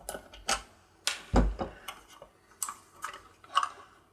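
Irregular small clicks and taps from the plastic and metal parts of a small LED disco light being handled and unscrewed during a teardown, with one heavier knock about a second and a half in.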